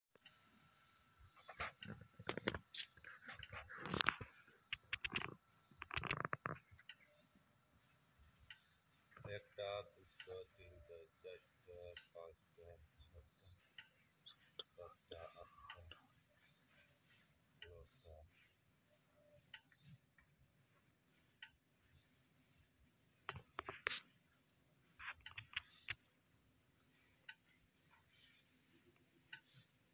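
Forest insects droning: a steady, high-pitched insect chorus, with a few sharp knocks and clicks in the first several seconds and short faint pitched calls partway through.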